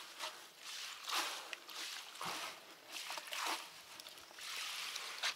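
Fishing net being dipped and worked in a bucket of bitumen thinned with petrol: irregular wet squelching and sloshing swishes.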